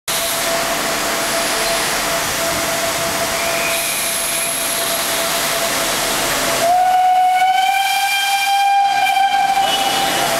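DSB class E steam locomotive standing with steam hissing steadily, then about seven seconds in a long blast of its steam whistle lasting about three seconds, the loudest sound here.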